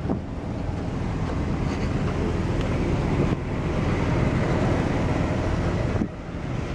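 Wind buffeting the camera microphone outdoors: a steady low rumble and hiss, with a brief drop about six seconds in.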